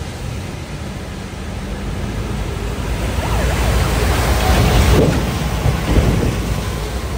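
A vehicle crossing a flooded ford, its wheels pushing through deep water: a rising rush of splashing water over a low engine hum, loudest about four to six seconds in.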